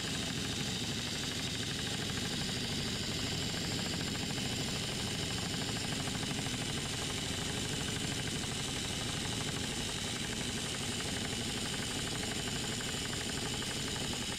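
Husky pneumatic impact wrench with a Torx bit socket hammering steadily on a tight door bolt to loosen it. It stops suddenly at the end.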